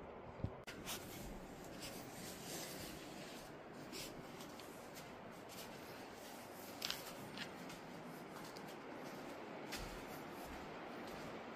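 Handling noise: rubbing and scraping against the camera's microphone, with scattered short clicks over a steady hiss.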